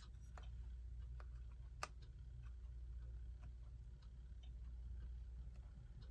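Faint, irregular small metallic clicks of a screwdriver prying at tight friction-fit clock hands, the sharpest about two seconds in, over a low steady hum.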